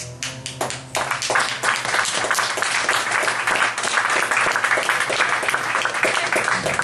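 Audience applauding: a few scattered claps, then steady clapping from about a second in.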